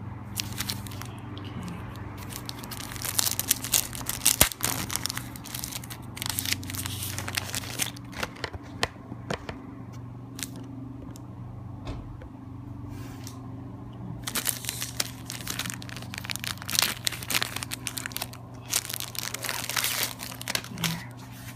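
Packaging for a phone case crinkling and tearing as it is unwrapped by hand. The crackly handling noise comes in two long stretches with a quieter lull between, over a steady low hum.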